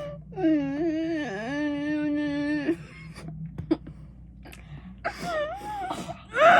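A child's long, drawn-out whining wail lasting about two seconds, dipping in pitch partway and then held steady, followed near the end by shorter whimpering sounds: an upset child being told to calm down.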